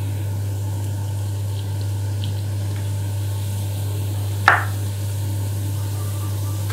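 Water poured from a plastic bottle trickling and dripping over a Geberit fill valve in a ceramic washbasin, rinsing off hard-water salt scale that was keeping the valve from shutting. A steady low hum runs underneath, and a single sharp knock comes about four and a half seconds in.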